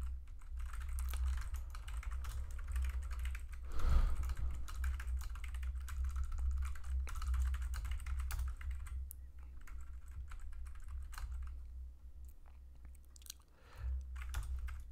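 Typing on a computer keyboard: quick, irregular key clicks as code is entered and edited, over a steady low hum. One brief louder sound comes about four seconds in.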